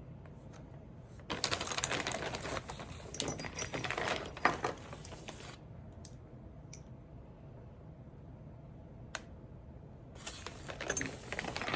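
Rummaging through a box of old gun parts: packing material rustling and crinkling while small loose metal parts click together. It comes in two spells, the first about four seconds long, the second starting near the end, with a few single clicks between.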